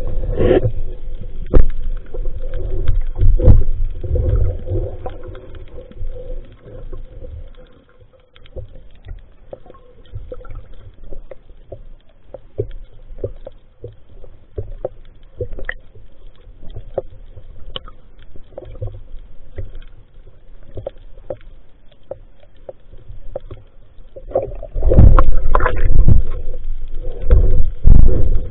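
Water movement heard underwater through an action camera's waterproof housing on a speargun: muffled rumbling and sloshing with knocks, loud in the first several seconds and again near the end, with quieter scattered clicks in between.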